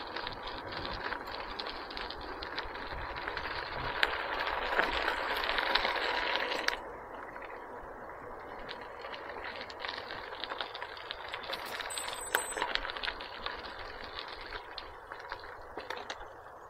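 Bicycle being ridden: a steady rush of tyre and wind noise with light rattles and clicks from the bike. The rush is fuller for the first seven seconds or so, then drops suddenly to a duller, quieter hiss.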